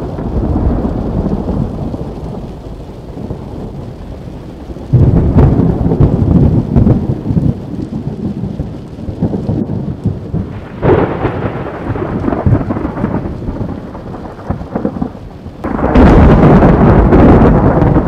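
Thunder rumbling repeatedly in a heavy thunderstorm, with rain falling throughout. Loud rumbles begin suddenly about five seconds in and again near the end, with a sharper crack about eleven seconds in.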